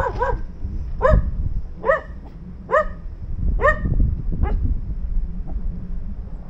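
Dog barking: a string of short, high barks about one a second, six in all, stopping about four and a half seconds in.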